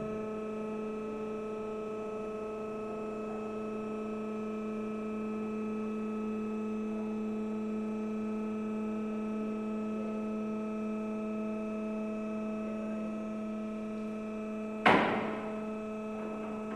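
Hydraulic power pack of a 50-ton cold press running: a steady, even electric-motor and pump hum. About 15 seconds in, a single sharp clunk cuts through it.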